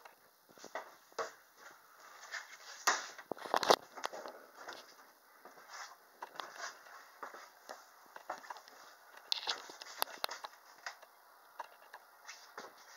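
Handling noise and footsteps in a small cabin: irregular clicks, taps and rustles as a handheld camera is carried through, with a few louder sharp knocks about three to four seconds in.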